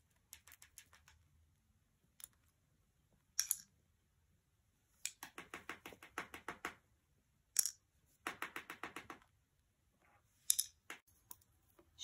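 Small plastic toys clicking and clattering as a cockatiel handles them with its beak among plastic crates: scattered single clicks and two runs of rapid clicking in the middle.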